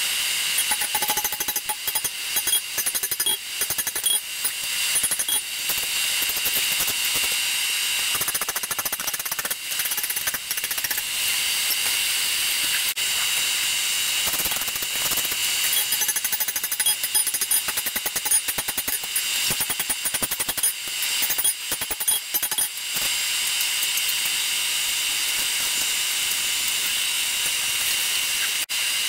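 Electric shop blower fan running with a steady high whine and hiss, with scattered metal clanks in the first several seconds.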